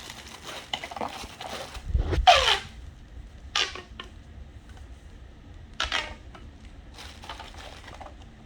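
Plastic pop tubes being stretched and squeezed: a low crinkly rustle with three short ribbed zips, the loudest about two seconds in, falling in pitch.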